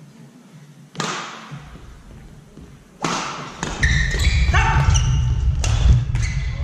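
Sports-hall crowd at a badminton match: a sudden burst of noise about a second in, then from about three seconds in loud cheering with shouts and heavy thumping that carry on.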